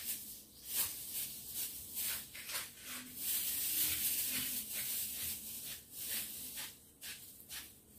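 Faint, intermittent rustling and handling noises as watermelon slices are picked up and moved on a wooden cutting board, over a steady low hiss.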